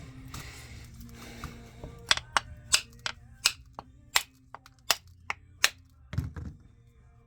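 Scraping, then about a dozen sharp, irregular taps of a tool against the seam of an old chainsaw's oil and fuel tank as it is split apart. A dull thump comes near the end.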